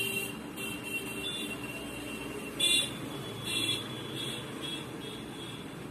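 Felt-tip marker squeaking and scratching across paper in a few short strokes as the lines of a pattern are drawn, the two loudest strokes a little under halfway through.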